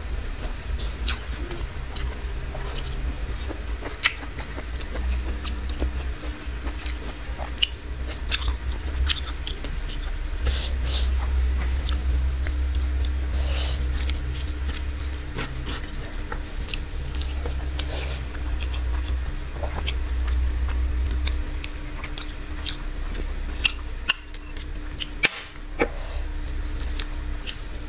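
A person chewing a mouthful of rice and greens eaten by hand, with many small wet mouth clicks scattered throughout, over a steady low hum.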